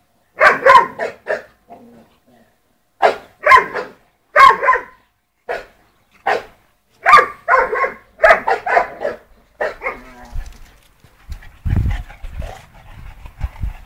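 Dog barking in quick runs of two to four barks for about ten seconds, then a low rumbling noise near the end.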